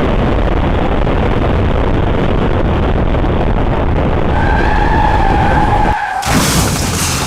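Steady road and wind rush of a moving vehicle. About halfway through a high squeal comes in and lasts under two seconds, then the low rumble drops away and a short skidding rush follows near the end.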